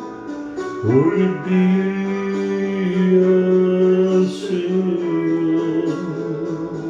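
A man singing a slow ballad over guitar, scooping up into a long held note about a second in.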